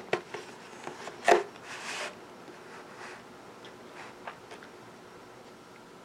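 Clear plastic clamshell food container being handled and set down on a table. A few sharp clicks and knocks come first, the loudest just over a second in, then a brief crinkle of plastic, followed by a few faint ticks.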